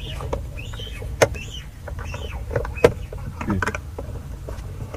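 Sharp plastic clicks and knocks from a car's side-mirror glass being handled and its wiring connector plugged in behind it, two louder clicks about a second and about three seconds in, over a steady low rumble.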